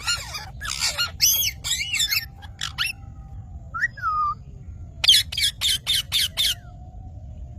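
Psittacula parakeets squawking: harsh screeching calls through the first three seconds, one call near the middle, then a quick run of about seven short shrill calls.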